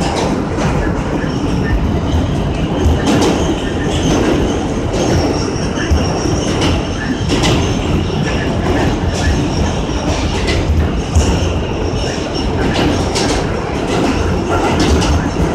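R160 subway car running through a tunnel, heard from the front cab: a steady rumble of steel wheels on rail, with irregular clicks over rail joints and faint high-pitched ringing from the wheels.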